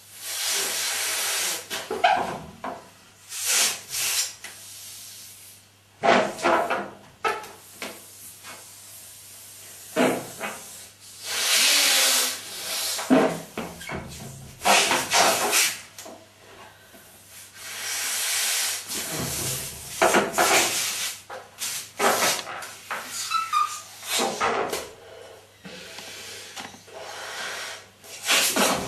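A large latex balloon being blown up by mouth: repeated breaths hissing into it, each one to two seconds long, with quieter gaps for inhaling between them. Now and then the latex rubs under her hands.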